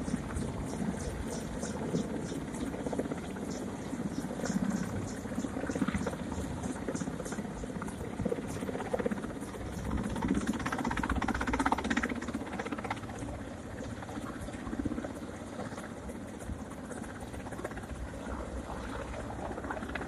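Mi-8 helicopter's turbines and rotor running steadily as it hovers with a slung load. It grows louder about halfway through, then eases off again.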